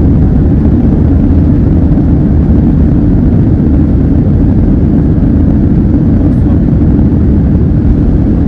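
Jet airliner cabin noise during takeoff: the engines at takeoff power make a loud, steady, deep rumble heard from inside the cabin.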